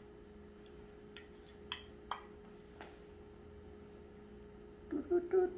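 A few light clicks and taps of a table knife against a plate and soft cheese as cream cheese is sliced and laid on, over a steady faint hum. A man's voice starts humming near the end.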